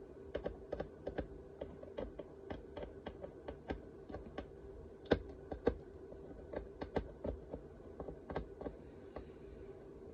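Small irregular clicks and taps, several a second, from tweezers and small parts being handled on a circuit board at a workbench, over a faint steady hum.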